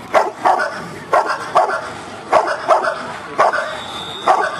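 Rottweiler barking at a helper standing in a blind, a steady run of sharp barks about two a second: the hold-and-bark of a protection exercise, the dog guarding the found helper without biting.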